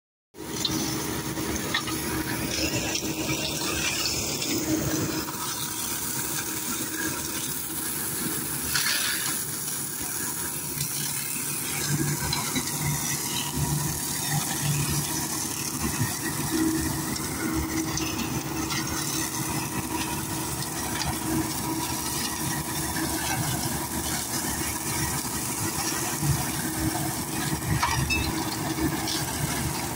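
Mahindra Yuvo 575 tractor's four-cylinder diesel engine running steadily under load, driving a rear-mounted flail mulcher that shreds dry grass and brush.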